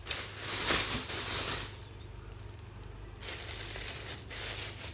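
Thin plastic produce bag rustling and crinkling as it is handled and opened, loudest in the first second and a half, with a second shorter rustle about three seconds in.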